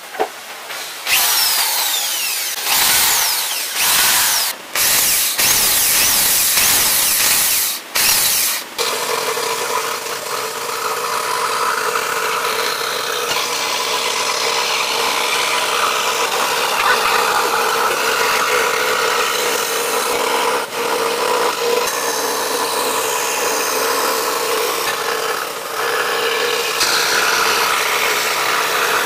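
Makita scroll saw running, its blade cutting through thin plywood: a steady hum with a rasping cutting noise over it. For about the first nine seconds the sound comes in short choppy stretches broken by brief gaps, then runs on evenly.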